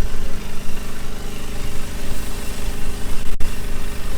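An engine running steadily at constant speed, with a brief break in the recording about three and a half seconds in.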